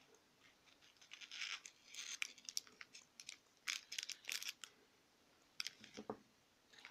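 Thin clear plastic bag crinkling and crackling as it is handled and a plastic drip tip is taken out of it, with a short duller knock just after six seconds as the drip tip is set down on a paper towel.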